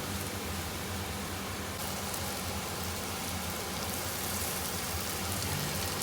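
Food sizzling in a hot pan: a steady hiss, over quiet background music.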